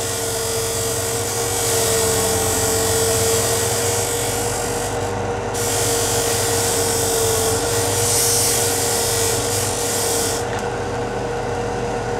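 Parkside PBTS 370 B2 belt and disc sander running with a steady motor hum while the end of a wooden board is pressed against its sanding disc, giving a loud grinding hiss of wood being sanded away. The sanding comes in two spells with a short break about five seconds in, and near the end only the motor runs.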